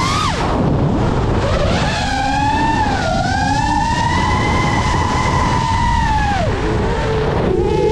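FPV quadcopter's brushless motors whining with the throttle: the pitch falls sharply just after the start, climbs back and holds steady, then drops again near the end. A steady low rumble of wind noise runs underneath.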